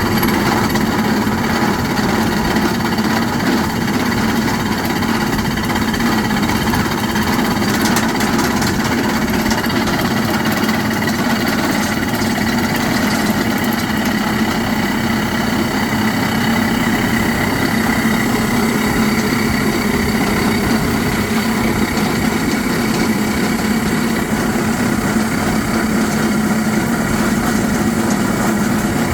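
Hard rock drilling rig running steadily, a constant engine-like hum with a few held tones and no pauses.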